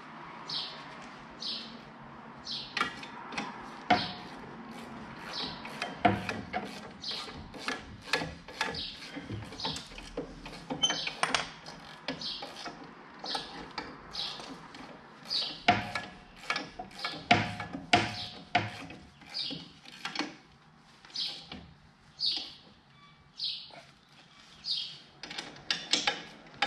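Metal clicks and knocks of a wrench on bolts as the broom arm's drive flange is bolted back up, coming in irregular bunches. A small bird chirps over it in a steady series of short high notes.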